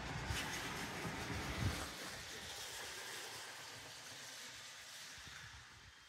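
A car driving past on the wet street, its tyre noise loudest in the first two seconds and then fading away, over a steady faint hiss.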